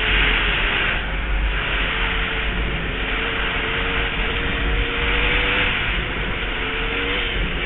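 Dirt bike engine running at speed across lake ice, its note holding fairly steady with small rises and dips, under a heavy rush of wind on the microphone.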